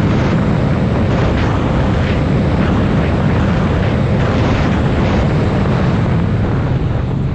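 Jet ski engine running flat out, climbing past 100 to about 115 km/h: a steady, loud engine drone under heavy rushing wind and water noise.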